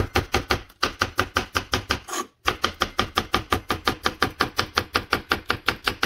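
Chef's knife rapidly slicing a green pepper into thin strips on a cutting board: quick, even chops about six or seven a second. The chopping pauses briefly just under a second in and again about two and a half seconds in.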